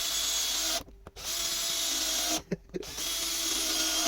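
18V Makita cordless drill driving screws in quick succession. Its motor whines steadily in runs of about a second, stopping briefly twice as each screw goes home and the next is started. The drill is on its low-speed setting.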